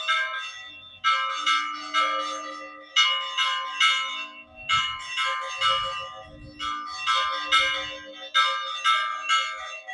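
Church bells rung by hand in a repeating peal: quick groups of about three strikes, each left ringing, with a short pause between groups. The peal announces the start of the village fiesta.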